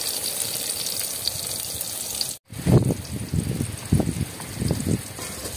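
Jackfruit fritters (bajji) deep-frying in hot oil, a steady sizzle. About two and a half seconds in the sound cuts off abruptly, and the sizzle then goes on more faintly under uneven low-pitched sounds as the fritters are ladled out.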